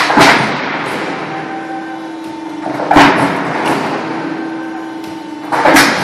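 Hydraulic crimping press stamping corrugated steel roofing sheet: three sharp metal strikes about three seconds apart, each ringing out briefly, over a steady machine hum.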